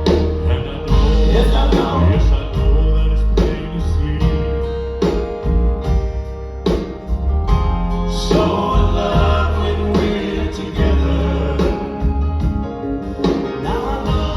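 Live band music with drums, bass and sustained keyboard or guitar chords, with a group of male voices singing in harmony.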